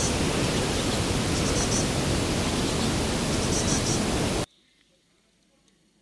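A steady, loud rushing hiss that cuts off suddenly about four and a half seconds in, followed by near silence.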